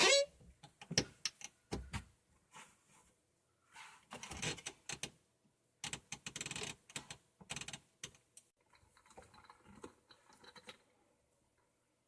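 Irregular clicks, taps and rustling of PVC plumbing parts being handled and fitted, coming in bunches about four and six seconds in and fading away near the end.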